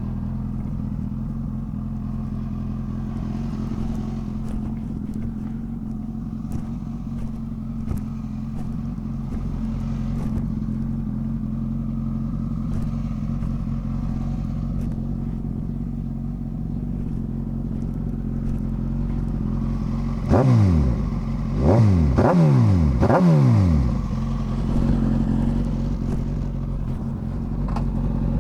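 Suzuki GSX-S1000's inline-four engine idling steadily, then revved in four quick throttle blips about twenty seconds in before settling back to idle.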